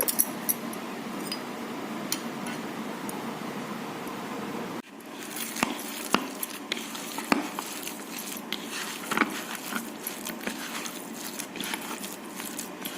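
Light clinks and small clicks over a steady hiss as banana-flower fritter batter is mixed and shaped by hand in a bowl, with a brief break about five seconds in.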